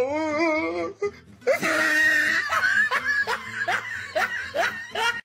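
Laughter: a wavering high laugh for about a second, then after a short pause a run of rhythmic "ha-ha" laughs, about three a second, that cuts off suddenly at the end.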